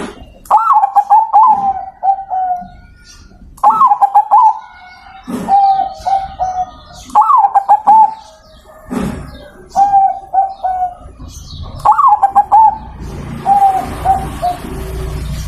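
Zebra dove (perkutut) cooing, repeating its song phrase several times: a high opening note followed by a run of short, clipped coos. Low thumps fall between the phrases, and a steady rushing noise comes in near the end.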